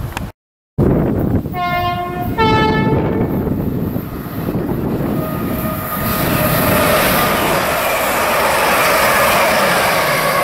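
Grand Central passenger train sounding its two-tone horn, two short notes, low then high, as it approaches. It then runs past with a rising rumble of wheels on rail and engine noise.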